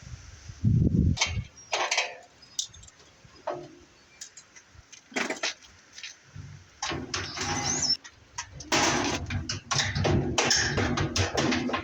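Metal parts of a washing machine being taken apart by hand: irregular knocks and clanks, then longer stretches of rattling and scraping metal.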